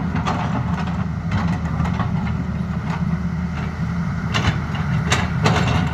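Tata Hitachi excavator's diesel engine running steadily, with a few sharp knocks near the end.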